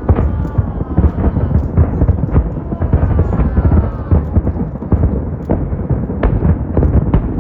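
A fireworks display: many sharp shell bursts in rapid, irregular succession over a continuous deep rumble.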